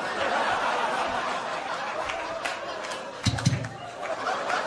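Comedy club audience laughing, with a short low vocal grunt from the performer a little after the middle.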